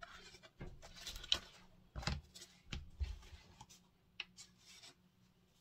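Paper pattern sheets being handled: faint rustling and rubbing, with a few short light taps and clicks.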